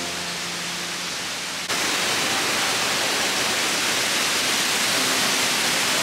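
Steady rushing of a large waterfall cascading down a broad rock face. The sound is softer at first, as heard from the approach tunnel, then jumps louder and brighter about two seconds in.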